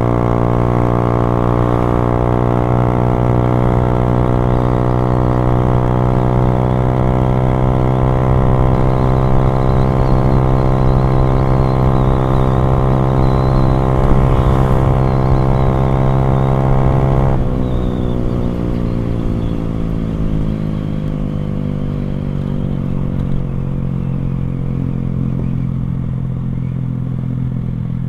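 Motorcycle running through a NOB1 aftermarket exhaust under steady throttle, its note rising slowly for about seventeen seconds. Then the throttle closes, the sound drops abruptly and the engine note winds down as the bike slows.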